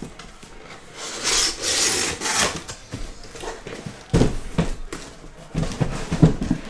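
A cardboard shipping case being handled on a table: a rasping rub of cardboard sliding for about a second and a half, starting about a second in, then several dull knocks as the box is bumped and moved.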